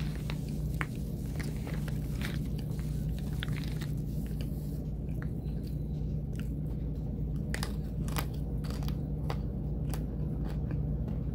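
Close-up biting and chewing of homemade baked cornstarch bites: irregular sharp crunches and crackles, over a steady low hum.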